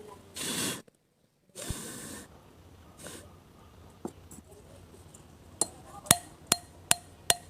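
Three short blows of breath hiss over a motorcycle cylinder head to dry off the petrol, since no compressor is used. These are followed, from a little past the middle, by sharp ringing metal clicks, about two and a half a second: the valve being tapped against its seat while the valve seating is evened.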